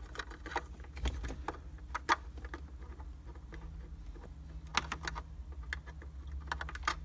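Scattered small plastic clicks and taps as a pick and fingers work the release tab of a wiring-harness connector on the back of a car radio unit, with a low steady hum underneath.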